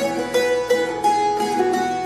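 Mountain dulcimer being strummed: a melody of plucked notes changing every few tenths of a second, ringing over a steady drone.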